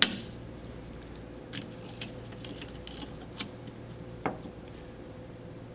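A few light metallic clicks and taps, the clearest about four seconds in, as the steel cap is fitted on top of the piston and the small parts are handled on the bench. A faint steady hum runs underneath.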